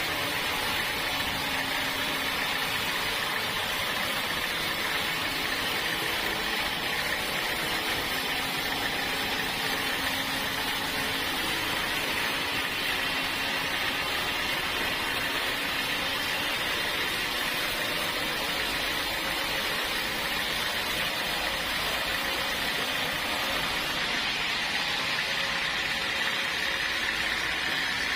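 Sawmill machinery running steadily: an even hiss with a faint low hum underneath, holding the same level throughout with no breaks.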